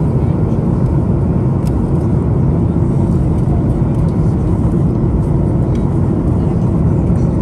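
Steady low rumble of a moving vehicle heard from inside its cabin.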